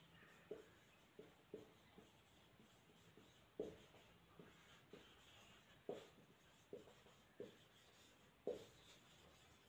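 Felt-tip marker writing on a whiteboard: about a dozen faint, short strokes, irregularly spaced, as letters are drawn.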